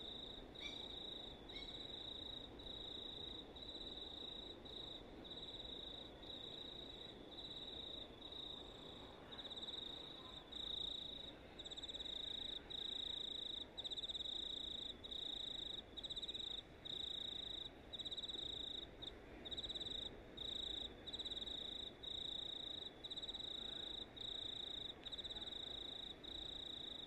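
A cricket chirping steadily at night: high trilled chirps repeated about one and a half times a second, over a faint low background noise.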